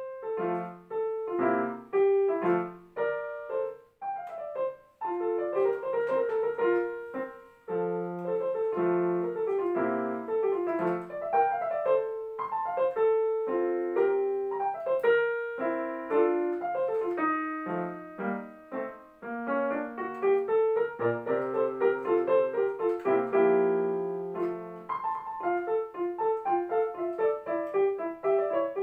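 Digital piano playing a classical solo piece, starting from silence: a quick melody in the right hand over a lower accompaniment, with a couple of short breaks between phrases.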